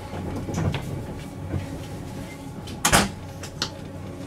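Steady low rumble of a 189-series train car running, heard inside the cabin, with a sliding door at the end of the car shutting with a sharp clack about three seconds in.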